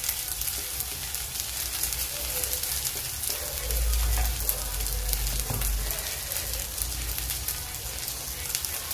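Small fish, onions and greens sizzling and crackling in an aluminium kadai over a gas flame, with a wooden spatula stirring and knocking against the pan now and then. A low rumble comes in for about two seconds a little before the middle.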